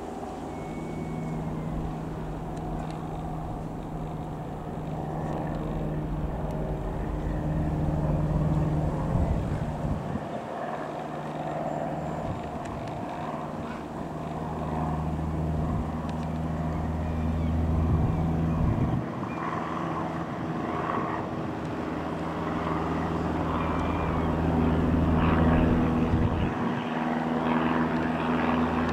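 Single-engine Cessna F172N Skyhawk's four-cylinder piston engine and propeller droning steadily overhead. The tone changes abruptly a few times, about a third of the way in, about two-thirds in, and near the end.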